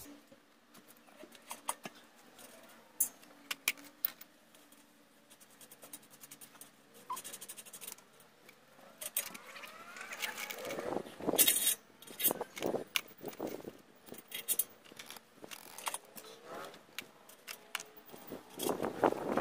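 Clinking, clicking and scraping of hand tools and small metal parts as the saw frame's wheels are worked on, with a louder burst of rattling and scraping about halfway through.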